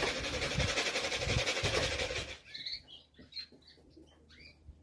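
A flurry of pigeon wing flapping for about two and a half seconds, a fast fluttering rush of wings, followed by a few short high chirps.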